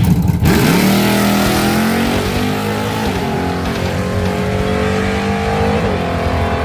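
A car engine at full throttle, accelerating hard in a drag-racing run; its note climbs slowly for several seconds, with a brief break near the end.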